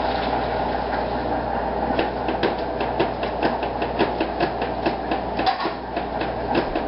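Dishes and utensils clinking and knocking at a kitchen sink, a run of quick light clicks starting about two seconds in, over a steady low whir.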